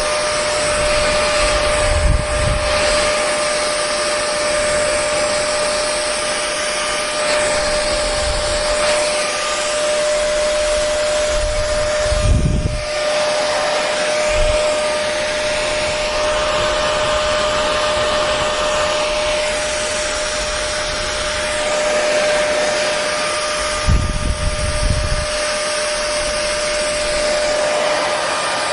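Hair dryer running steadily: a constant rush of air with a steady motor whine, broken by a few brief low rumbles.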